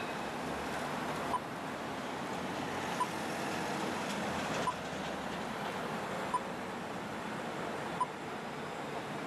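Steady tram and street-traffic noise, with five short high beeps evenly spaced about every second and a half.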